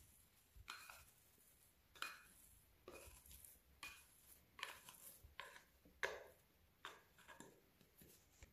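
Faint scraping of a plastic dough scraper inside a glass bowl as risen bread dough is worked loose onto a floured steel worktop. It comes as a run of short strokes about one a second, the loudest about six seconds in.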